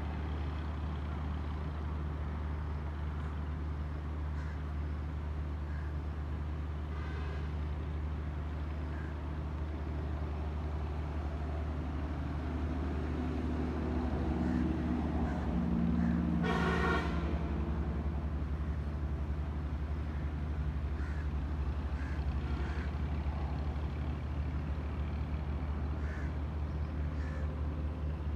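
A vehicle engine hums steadily. Another vehicle passes, and a horn gives a short toot a little after halfway.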